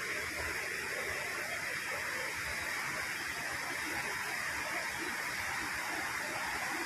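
Steady, even rush of a rain-swollen river in flood.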